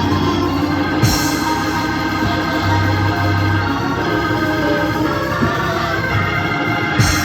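Gospel organ music: an organ holding full sustained chords, with a sharp bright accent about a second in and another near the end.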